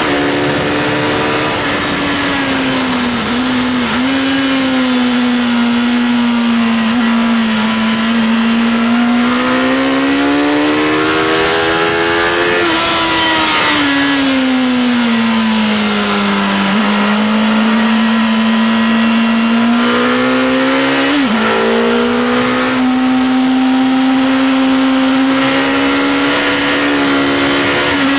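Honda CBR Fireblade's inline-four engine heard from the rider's seat at track speed. The engine note climbs under acceleration and drops back as the bike slows for corners, breaking sharply at gear changes a few times, over heavy wind noise.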